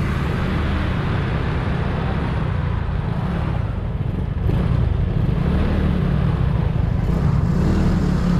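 Motor vehicle on the move: a steady low rumble with a hiss of wind and road noise, a little louder from about five seconds in.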